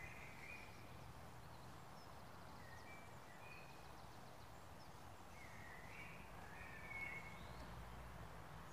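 Faint woodland birdsong: short whistled phrases from songbirds every few seconds, over a low, steady background rumble.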